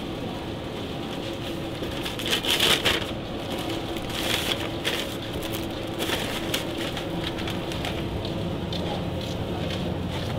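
Paper-wrapped burgers and a brown paper bag being handled: crisp crinkling rustles in several short bursts, the loudest about two and a half seconds in, over a steady background hiss.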